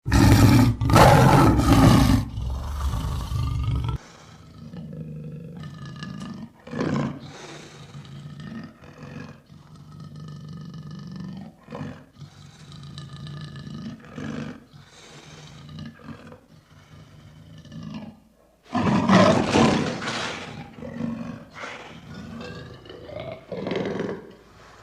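Lion roaring. A loud roar starts abruptly and lasts about four seconds, followed by a series of shorter, quieter calls. A second loud roar comes about nineteen seconds in, then more short calls.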